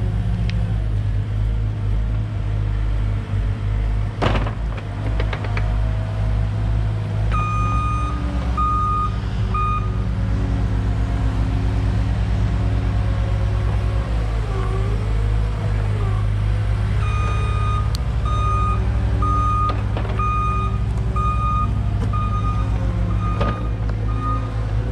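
Mini excavator's diesel engine running steadily, with its travel alarm beeping in two spells, roughly one and a half beeps a second, as the machine tracks. There is a sharp knock about four seconds in.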